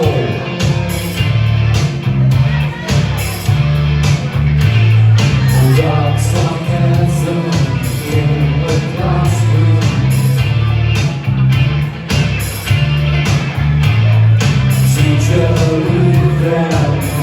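A song performed live by a duo: singing over a steady drum beat and a stepping bass line.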